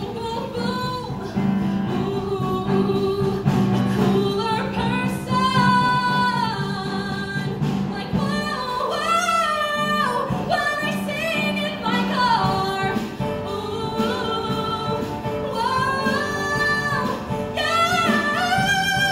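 A woman singing solo into a microphone, her voice amplified through a PA, gliding between notes and holding long notes with vibrato.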